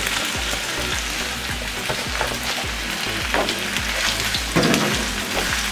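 Halved mini sausages, whole shallots and garlic sizzling in oil in a nonstick frying pan, stirred with a spatula that adds short scraping clicks.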